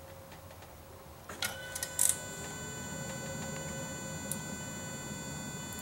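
A few sharp clicks as the ignition key is turned on, then the 1999 VW Passat's electric fuel pump running with a steady whine, pressurising the fuel line.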